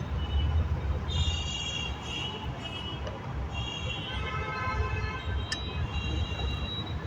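Steady low rumble of road traffic, with faint high-pitched tones coming and going over it and a single sharp click about five and a half seconds in.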